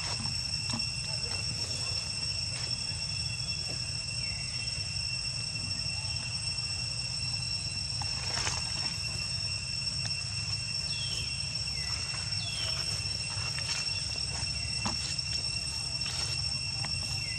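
Steady high-pitched insect chorus, a continuous drone at more than one pitch, over a low rumble. A few short squeaks glide downward in pitch, once early on and a couple of times past the middle.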